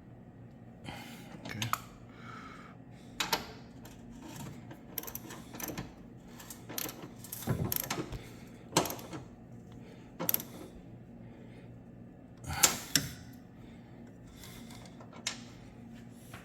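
Irregular metallic clicks and clanks of hand tools on car-engine mount bolts, with the loudest clank about three-quarters of the way in, over a faint steady hum.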